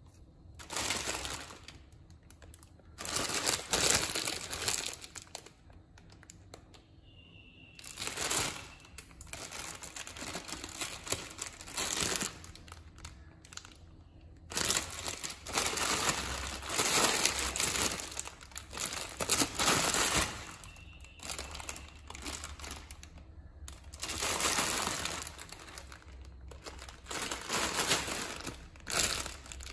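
Plastic wrapper of a Maggi instant-noodle five-pack crinkling as it is handled and turned over, in irregular bursts with short pauses between.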